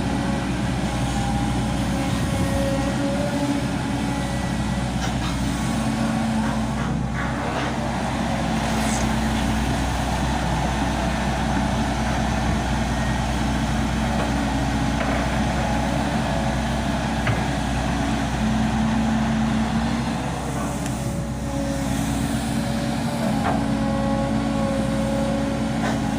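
Volvo 200 hydraulic excavator's diesel engine running steadily as it works, with a higher tone from the machine that comes and goes.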